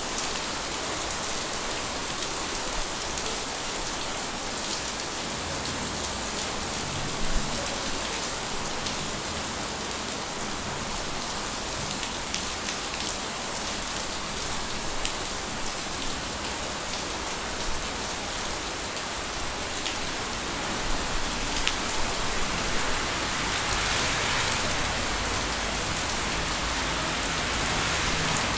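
Steady summer rain falling, with individual drops ticking on hard surfaces close to the microphone. One sharp louder drip about seven seconds in, and the rain grows a little heavier in the last third.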